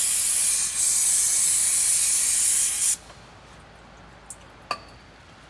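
Aerosol can of brake cleaner spraying in a loud, steady hiss, with a brief break a little under a second in. The spray cuts off suddenly about three seconds in, followed by a couple of small clicks.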